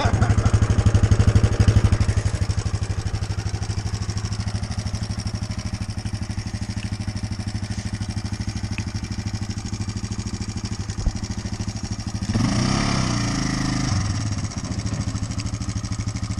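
ATV engine running with fast, even firing pulses. About twelve seconds in it gets a short burst of throttle lasting a couple of seconds, rising in pitch, then settles back.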